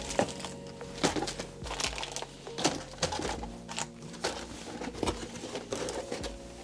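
Plastic bags of silicone plugs crinkling and rustling as they are handled and lifted out of a cardboard box, with irregular crackles throughout.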